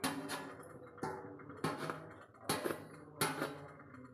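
Toothpick jabbing through cling film onto a perforated metal steamer plate: several sharp taps, each leaving a brief metallic ring.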